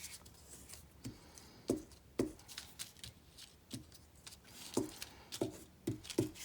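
Light, scattered taps and knocks of a glue stick and paper being handled on a tabletop, about eight in all at irregular intervals.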